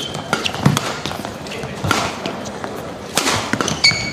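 Badminton doubles rally: several sharp racket strikes on the shuttlecock, with high-pitched shoe squeaks on the court mat near the end.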